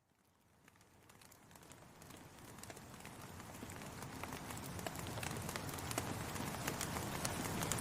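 Rain falling, with many separate drops ticking, fading in from near silence and growing steadily louder over several seconds.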